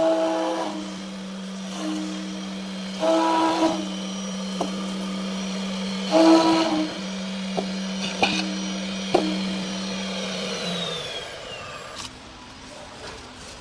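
CNC router's high-speed spindle running with a steady hum while carving foam. Louder bursts of higher tones come about every three seconds, with a few sharp clicks between them. Near the end the hum stops and a high whine falls away as the spindle winds down.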